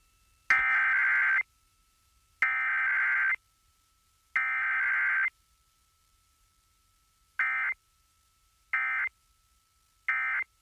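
Emergency Alert System SAME digital data bursts: three harsh, buzzy tone bursts of about a second each (the header), then three much shorter bursts (the end-of-message code). There is no attention tone or spoken message between them.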